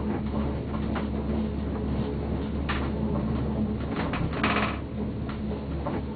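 Leitner six-seat gondola cabin riding up the cable: a steady low hum, with several short clicks and rattles and a longer rattle about four and a half seconds in.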